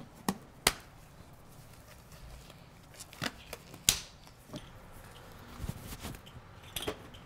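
Disposable nitrile exam gloves being pulled on, the cuffs snapping against the wrists in several sharp snaps. The loudest snaps come just under a second in and again about four seconds in.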